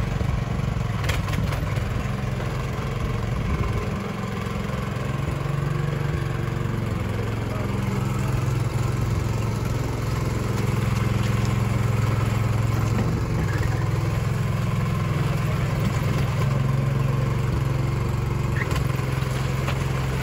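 Engine of a two-wheel walking tractor (patpat) running steadily under load as it pulls a trailer heaped with hay bales, getting a little louder about halfway through. The machine is being pushed near its limit and is short of power for the load.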